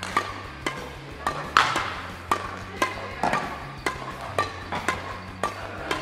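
Background music with a steady beat, over sharp racket-on-shuttlecock hits about twice a second as the two players trade fast shots.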